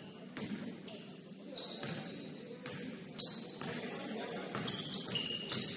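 Basketball play in a gym: a sharp knock of the ball about three seconds in, further knocks and short high squeaks of sneakers on the court floor, over a murmur of voices in the hall.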